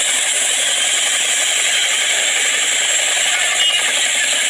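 CH-47 Chinook tandem-rotor helicopter running on the ground with both rotors turning: a loud, steady, rapid chop of the rotor blades.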